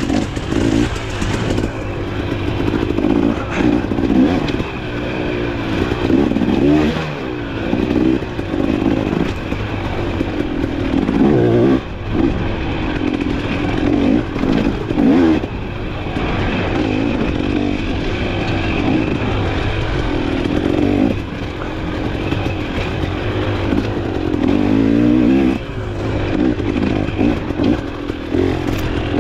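Off-road dirt bike engine revving up and down continuously under a rider on a trail, the pitch constantly rising and falling, with occasional knocks from the bike.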